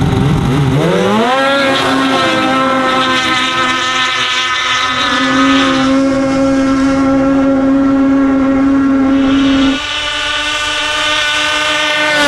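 Polaris two-stroke snowmobiles launching at full throttle in a drag race. The engine pitch climbs steeply over the first second or so, then holds at one high pitch as the sleds gain speed, and the tone shifts about ten seconds in.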